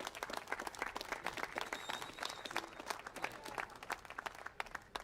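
Crowd applauding a medalist being called to the podium, a dense run of hand claps throughout.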